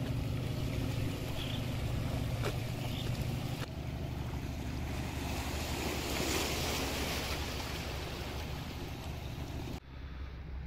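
Passenger ferry's engine running with a steady low hum, under the rush of water along the hull and wind on the microphone. The sound changes abruptly about four seconds in and again near the end.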